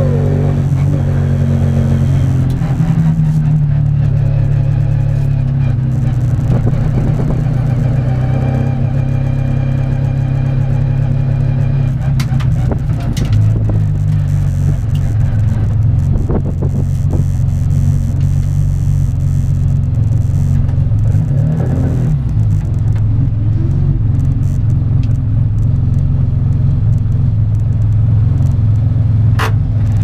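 Classic Mini's 1380 cc A-series engine running at low revs, heard from inside the cabin, with a steady low note that shifts only slightly. It is punctuated by a few sharp clicks or knocks.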